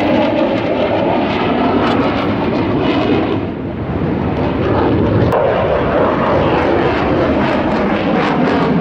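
F-35 fighter jet's single turbofan engine running loud as the jet passes overhead in its display, a sustained jet rush whose tone sweeps slowly as it flies by, easing briefly about three and a half seconds in before building again.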